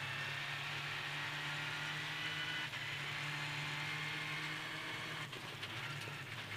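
Rally car engine running hard at a steady high speed, heard from inside the cockpit, changing up into sixth gear, then easing off and dropping back to fifth near the end.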